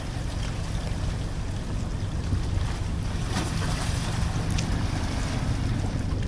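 Wind rumbling on the microphone over water lapping, with a faint steady low hum underneath.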